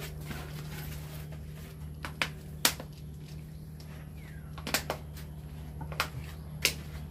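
Plastic wire molding cover being pressed and snapped onto its base channel by hand: about six sharp plastic clicks at irregular spacing.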